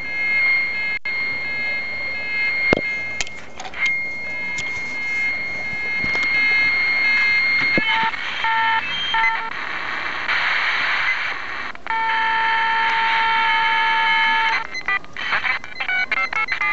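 Electronic tones and beeps over FM receiver hiss, heard through an R-105M Soviet military FM radio tuned to a cordless telephone's channel as the handset is switched on and dialed. A steady high whistle comes first, then a chord of several steady tones with a rush of hiss, then short choppy tone bursts near the end.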